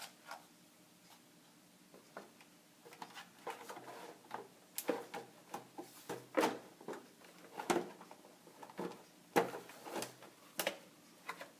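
Plastic casing parts of a Thermomix TM31 knocking and clicking as the housing is closed up and snapped back into place. The sharp clacks begin about three seconds in and come irregularly, the loudest roughly a second apart.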